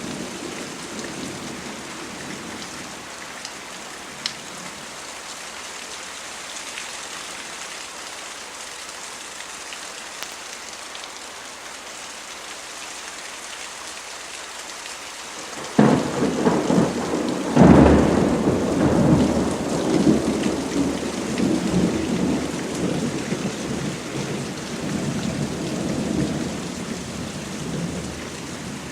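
Steady rain, then a sudden clap of thunder just past halfway, its loudest crack a couple of seconds later, followed by rolling thunder that slowly dies away under the rain.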